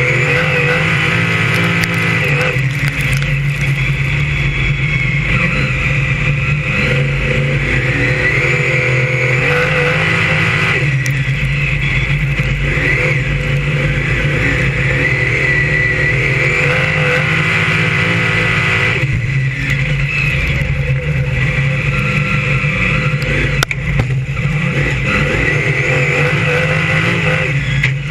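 BriSCA F1 stock car's V8 engine at racing revs, heard from on board, its pitch rising and falling every few seconds as it accelerates and eases off around the oval.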